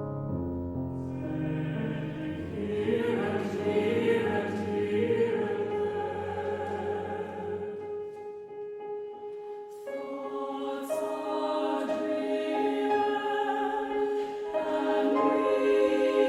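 Choir singing long, sustained chords in a contemporary classical piece, over low held notes that die away about halfway through; the voices swell again near the end.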